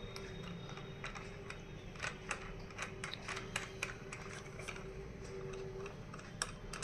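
Light, irregular metallic clicks and taps as a small metal attachment is screwed onto the threaded shaft of a dial-type push-pull force gauge and the gauge is handled.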